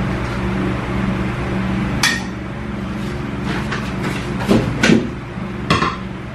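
Ceramic dishware clinking and knocking: a sharp clink about two seconds in, two duller knocks a little past the middle, and a last clink as a bowl is set down on a table near the end.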